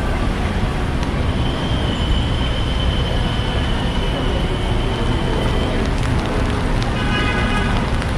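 City street traffic noise: a steady hum of passing vehicles. A thin, high whine runs through the middle, and a short horn toot sounds near the end.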